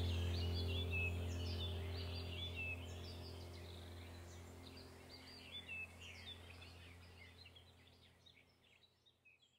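Background relaxation track of birds chirping over a low steady drone, fading out gradually to near silence by the end.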